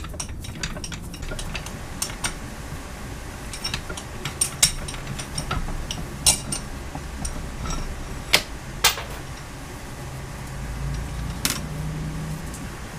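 Hand tools and steel vise parts clinking and tapping against each other at irregular intervals, with a few sharper metallic clinks, over a steady low hum.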